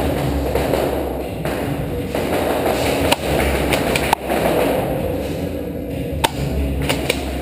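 Airsoft game noise: a continuous busy din with four sharp cracks spread through its second half, the snaps of airsoft play in the arena.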